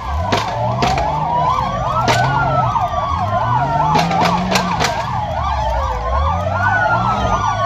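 Police car sirens sounding together: one fast yelp warbling about four times a second, overlaid by a slower wail that rises and falls every few seconds. Vehicle engine noise runs underneath.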